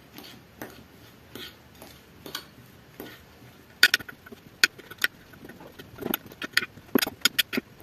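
A metal fork mashing and stirring boiled potatoes in a glass baking dish, its tines clicking and scraping against the glass in irregular strokes. The clicks are soft and sparse at first, then louder and more rapid from about four seconds in.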